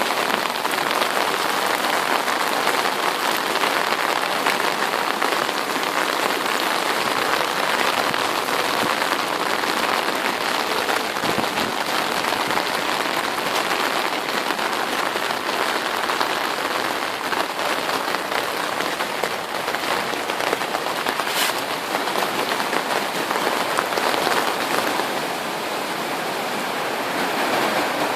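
Steady rain falling and pattering on surfaces, a dense, even hiss of fine drops, with a single brief click about three quarters of the way through.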